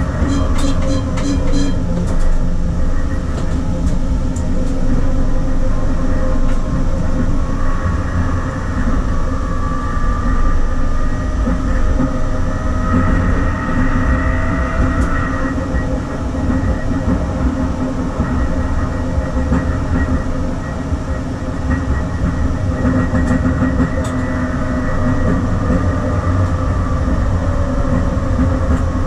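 SL95 tram running along the track between stops: a steady rumble of wheels and motors, with a pitched whine that comes and goes near the middle.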